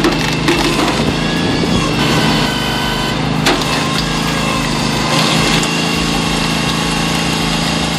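Small engine of a homemade hydraulic log splitter running steadily at a constant speed, with one sharp knock about three and a half seconds in.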